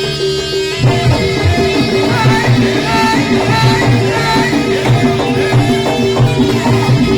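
Live music accompanying a Javanese jaran kepang horse dance: drums keeping a steady beat under held tones and melodic instruments.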